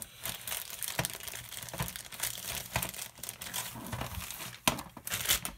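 Plastic packaging of model kit parts crinkling and rustling as it is handled and unwrapped, with a few sharper crackles near the end.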